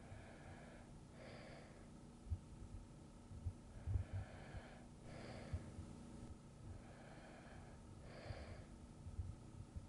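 Slow, soft breathing of a sleeping person: about three breath cycles, each an in-breath followed by an out-breath, roughly every four seconds. Faint short low thumps come and go underneath.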